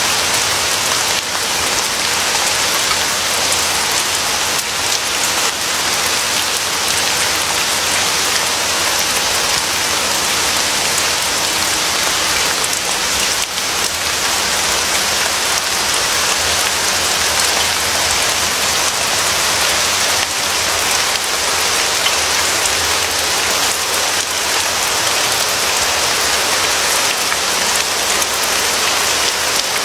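Steady rain, falling evenly without letting up.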